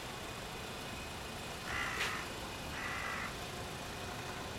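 A crow cawing twice, two short calls about a second apart, over steady street background noise, with a sharp click during the first call.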